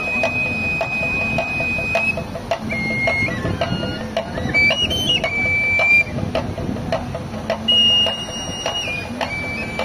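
Reed flute of the voladores de Papantla playing a high melody of held notes that step up and down in pitch, over a small hand drum tapped in a steady beat.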